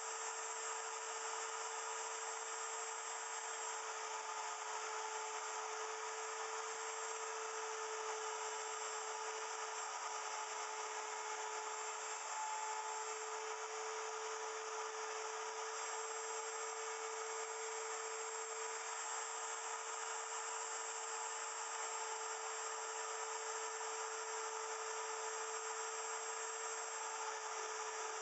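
Electric wood router running at steady speed in a router milling machine, cutting a small block of wood, with a constant whine.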